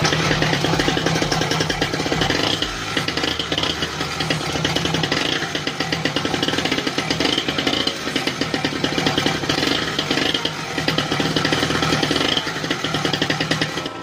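Small engine of a kids' mini dirt bike running fast with a rapid buzz that swells and dips a little in loudness, on a test run after its air leaks were sealed to cure hard starting and wild revving.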